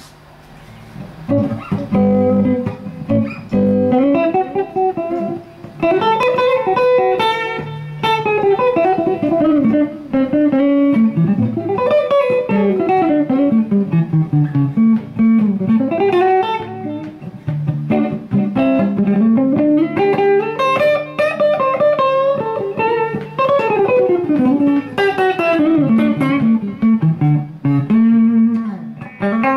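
1962 Gibson ES-330 hollow-body electric guitar with P-90 pickups, played through a Two-Rock amplifier and a Zendrive overdrive pedal. Single-note lead lines run up and down the neck in quick phrases with some held notes, starting softly and filling in within the first couple of seconds.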